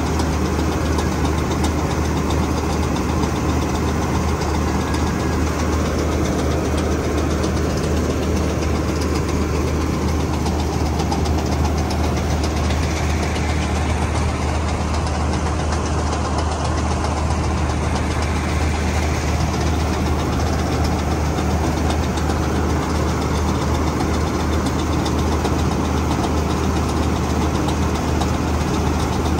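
Tractor diesel engine running steadily at a constant speed, a deep, even drone with no change in pitch or level.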